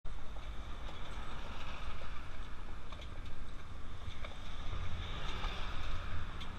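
Open-sided tour wagon on the move: a steady rumble of its wheels on the road with wind buffeting the microphone, and a few faint irregular clicks and knocks.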